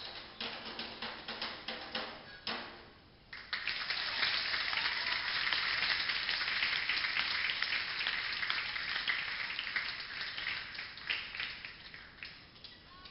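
Hand drumming on djembes that stops about two and a half seconds in; after a short lull a dense, even crackle starts suddenly, holds for several seconds and fades out near the end.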